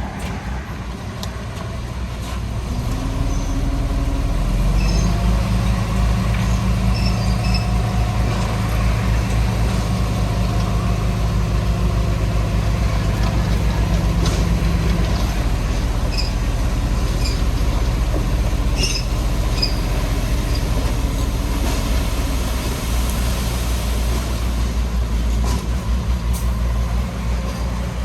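Diesel engine of heavy construction machinery running hard, growing louder over the first few seconds and then holding steady.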